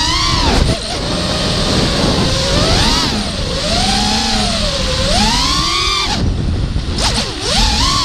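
Four brushless motors of an FPV racing quadcopter (T-Motor F40 2500kV) spinning 5-inch props, a whine that rises and falls with the throttle, over a low rumble of wind on the onboard camera. The throttle is chopped a little after six seconds in, the whine dropping, then it climbs again near the end. The quad is flying with a bent motor shaft, bad bearings and bent props.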